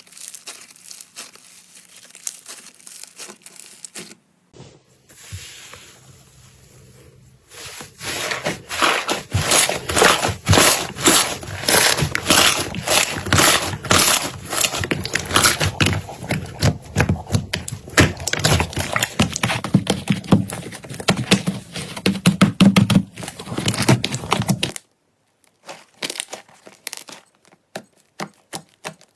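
Slime being squeezed and pressed by hand, making a stream of close-set crackles and pops that turns dense and loud about eight seconds in, with abrupt changes where one clip cuts to the next.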